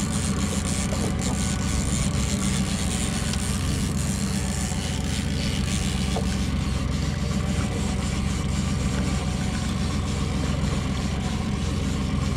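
Small outboard motor running steadily at slow trolling speed, with an even hiss over it.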